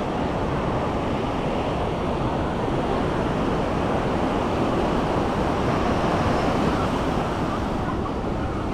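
Ocean surf breaking and washing up a sandy beach: a steady rush of noise, with some wind on the microphone.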